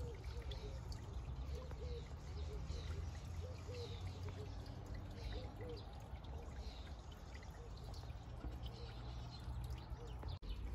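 Faint outdoor ambience of birds calling, a run of short repeated low notes with higher falling chirps about every half second, over a low steady rumble.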